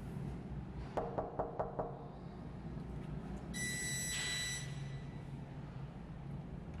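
Knuckles rapping five quick times on a wooden hotel-room door, followed about two seconds later by a high electronic beep lasting about a second.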